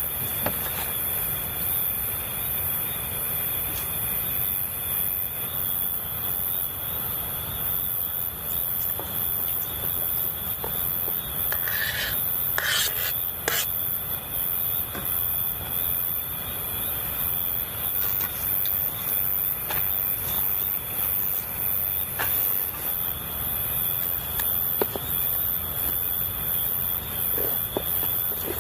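Steady river rush with insects trilling continuously over it. A few short, sharp chirps come about twelve to thirteen seconds in.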